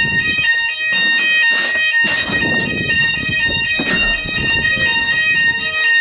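Building fire alarm sounding loudly: a steady high electronic tone with a repeating pattern of alternating higher tones over it. Rustling and knocks of people moving about come through now and then.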